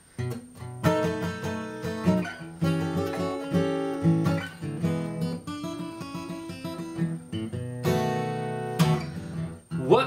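Solo steel-string acoustic guitar strummed and picked in a blues rhythm, playing the song's intro.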